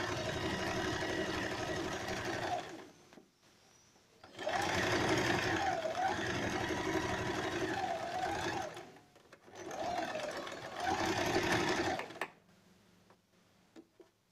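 Electric domestic sewing machine stitching a seam in three runs of a few seconds each with short pauses, its motor pitch rising and falling as the speed changes. It stops about twelve seconds in, leaving a few faint clicks.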